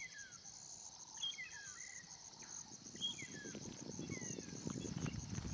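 Bush dawn chorus: a steady, pulsing high insect chorus, with a bird repeating short whistled notes that slide downward. A low rustling, crackling noise builds in the second half.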